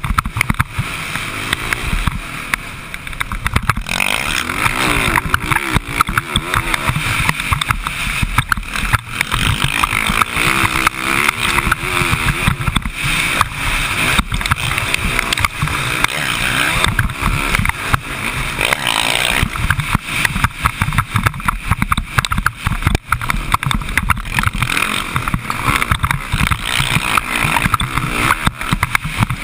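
Dirt bike engine revving up and down as the bike is ridden around a motocross track, with heavy wind buffeting the microphone.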